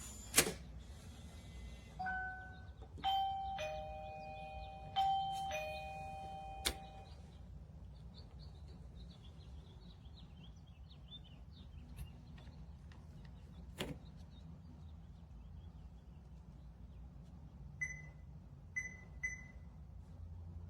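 Electronic two-note ding-dong doorbell chime from a smart lock's doorbell button, sounded twice in quick succession after a sharp click. A few faint chirps follow, and near the end there are three short beeps.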